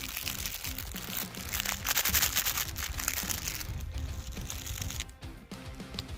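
Background music, with a dense crackling noise laid over it that is loudest about two seconds in and stops about five seconds in.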